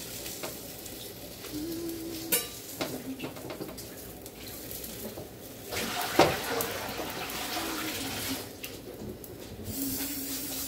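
Egg and tortilla pieces frying in a pan on a gas burner, with a sharp clink of a utensil or the pan about two seconds in and a louder knock about six seconds in. A light hiss of frying swells after the knock and again near the end.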